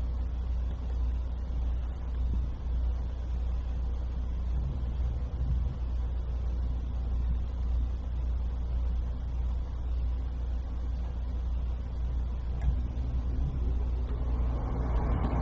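Steady low hum of room noise with no speech. A broader hiss swells in near the end.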